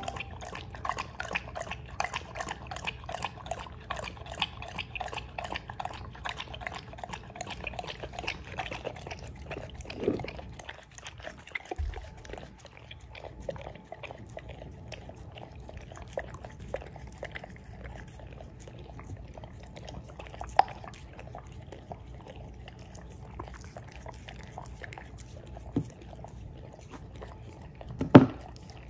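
Golden retriever lapping goat milk from a ceramic bowl: quick, dense laps that thin out after about ten seconds as the bowl empties, then licks at the bare bowl. A sharp knock near the end.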